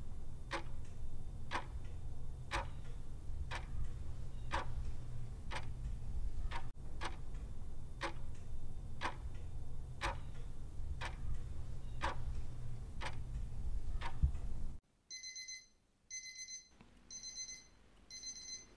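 Alarm clock ticking steadily, about once a second, over a low hum. About fifteen seconds in, the ticking stops and the alarm goes off: short high electronic beeps repeating about once a second.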